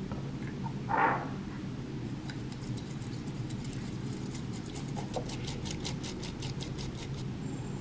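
A short pour of water into a ceramic matcha bowl about a second in, then a bamboo matcha whisk (chasen) brushing back and forth in the bowl, its quick strokes speeding up to several a second near the end.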